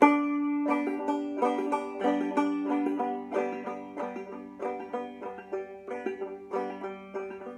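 Banjo played clawhammer style: a continuous run of plucked, ringing notes, several a second, opening on a loud note.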